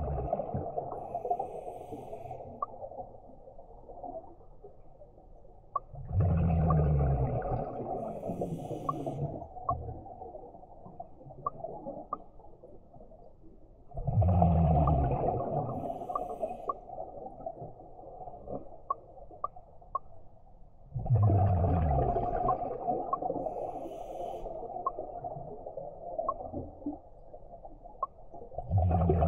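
Scuba diver breathing through a regulator underwater: a loud gurgling burst of exhaled bubbles about every seven to eight seconds, five times, with quieter breathing noise and faint regular ticking between.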